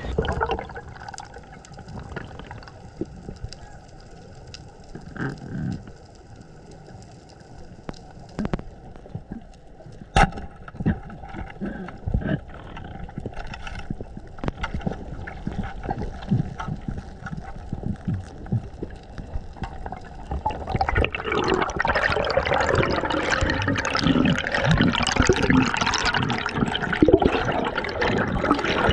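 Water and bubbles heard underwater, with scattered clicks and crackles at first, then louder bubbling and rushing water from about two-thirds of the way in.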